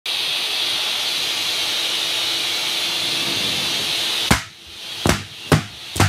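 A shop vac sucking air, a loud steady rush with a faint hum. About four seconds in, a sharp bang cuts the rush off. Latex balloons then pop sharply about twice a second as the nozzle pulls them in.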